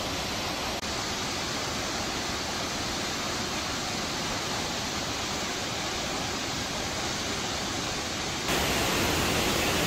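Hardy Falls, a waterfall, rushing: a steady, even noise of falling water. It turns abruptly louder about eight and a half seconds in.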